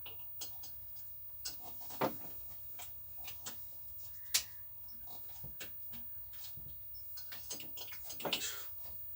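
Scattered light clicks and knocks of cables and connectors being handled and sorted, with two sharper knocks about two seconds and four and a half seconds in, and a short rustle near the end.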